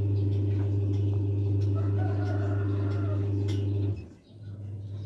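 A Pelung rooster crowing with its long, deep drawn-out crow. A loud steady low hum runs underneath and cuts off about four seconds in.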